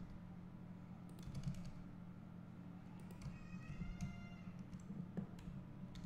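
Faint computer keyboard typing and clicks as Blender shortcuts are keyed in, over a steady low hum. A brief squeak comes just past the middle.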